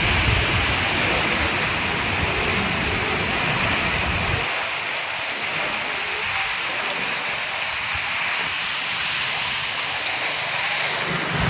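Heavy rain falling on a flooded street: a steady hiss of rain on water and pavement. A low rumble sits under it for the first four and a half seconds, then stops.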